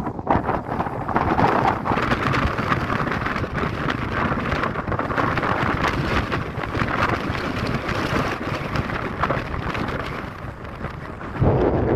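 Strong wind gusting and rushing, buffeting the microphone, with the level rising and falling. A harder gust hits suddenly near the end.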